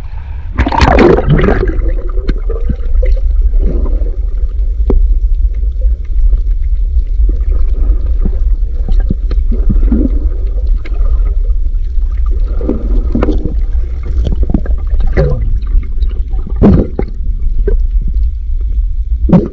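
Water heard by a submerged camera: a steady low rumble with gurgling, bubbly swishes that come and go every second or two.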